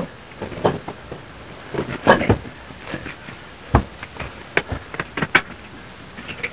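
Scattered short knocks and clatter as a crew handles a diver's gear on a boat deck, the strongest about two seconds in and another cluster past the middle, over the steady hiss of an old optical film soundtrack.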